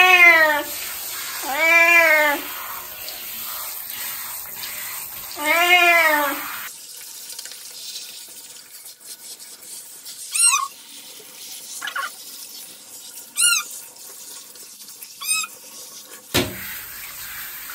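Elderly ginger cat meowing in protest while being rinsed in a bathtub: three loud, drawn-out meows in the first six seconds, each rising then falling in pitch, then four shorter, higher, fainter cries. Water from a hand shower hisses steadily underneath.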